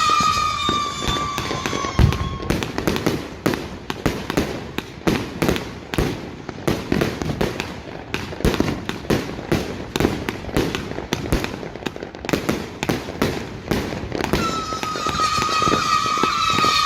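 A 260-shot fireworks cake firing. A shrill whistle sounds until about two and a half seconds in, with a heavy thump at about two seconds. Then comes a rapid run of sharp bangs and crackles, several a second, and near the end the whistling starts again.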